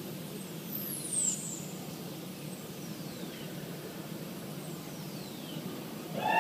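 Electronic synthesized tones: three high, falling pitch sweeps about two seconds apart, the first the loudest and the later ones fainter, over a low steady rumble. Right at the end a louder chord of held electronic tones comes in.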